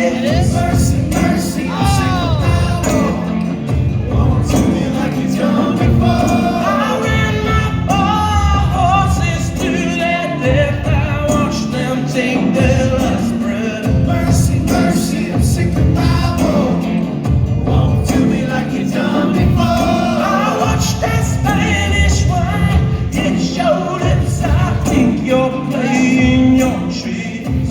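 Rock band playing live, with a lead vocal singing over a steady, pulsing bass and drum beat.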